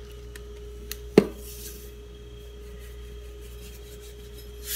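Table salt poured from a canister onto raw chicken wings: a sharp click about a second in, then a brief soft hiss of falling grains, with another click near the end. A faint steady hum runs underneath.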